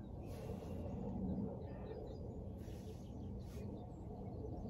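Outdoor ambience: a steady low rumble of wind noise, with a few faint bird chirps and a few brief soft rustles.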